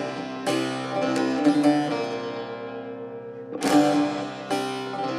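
Bağlama (Turkish long-necked saz) played solo: plucked melody notes ring and fade over the droning open strings, with a hard strummed stroke about three and a half seconds in.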